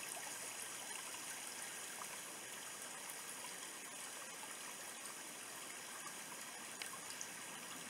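Shallow, rocky stream trickling over stones: a steady, light rush of running water with little low rumble.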